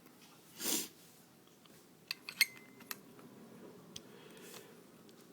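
Small metal fuel-line fittings being handled: a quick cluster of sharp clicks about two seconds in, one with a brief metallic ring, and a single faint click near four seconds. A short soft rushing noise comes just before, under a second in.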